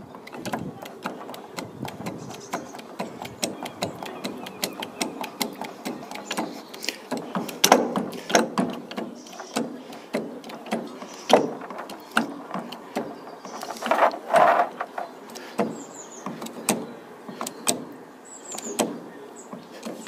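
A 25-ton hand-pumped hydraulic crimping tool being worked slowly as it presses a metal fitting onto steel wire rope. Its pump handle and mechanism make many short, irregular clicks and knocks, the loudest about eight seconds in, with a longer creak around fourteen seconds.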